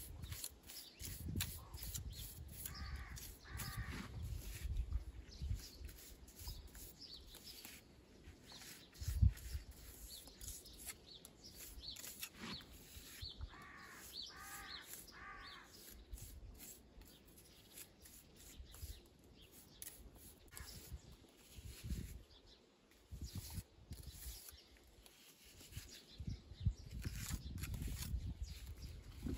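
Crows cawing: two calls a few seconds in and a run of four about halfway through, over light scraping and clicking sounds.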